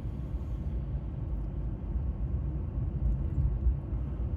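Steady low rumble of road noise heard inside a moving car.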